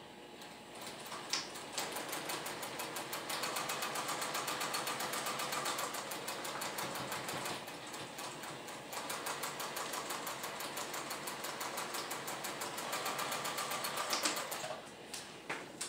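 Electric sewing machine stitching a seam, its needle mechanism clattering rapidly and evenly. It starts about a second in, runs a little quieter for a moment halfway through, and stops near the end.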